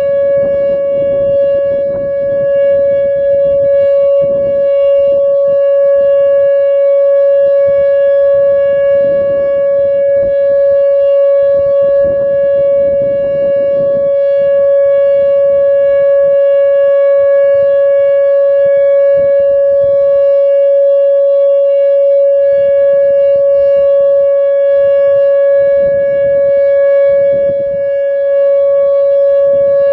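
Whelen WPS-2908 electronic outdoor warning siren sounding a loud, steady single-pitch alert tone during a full siren test. A gusty low rumble comes and goes beneath the tone.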